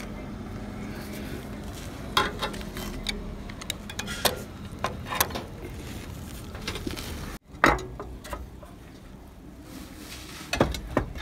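Scattered hard clinks and knocks of roof tiles shifting and being handled as a man clambers over a tiled roof and into an opening in it.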